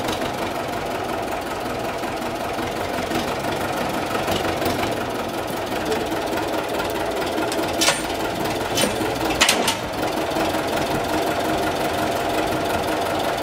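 MAN Ackerdiesel B18A vintage tractor's diesel engine running steadily with a knocking diesel note while working its front loader. A few sharp clanks cut through, one about eight seconds in and a louder quick pair about nine and a half seconds in.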